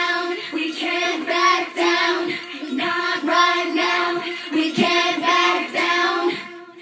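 A girl singing into a corded handheld microphone over a steady held backing note, her sung notes changing pitch every half second or so. The singing fades out shortly before the end.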